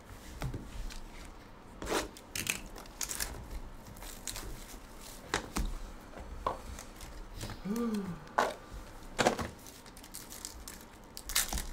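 Hands handling cardboard trading-card hobby boxes and then opening a foil basketball card pack: scattered light knocks and crinkles, with the foil wrapper crinkling and tearing near the end.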